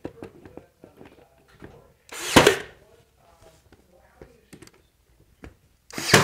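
Ryobi brad nailer driving brads through quarter-round shoe moulding into the baseboard: two shots about four seconds apart. Each is a short build-up ending in a sharp crack. Light tapping and handling of the moulding can be heard between them.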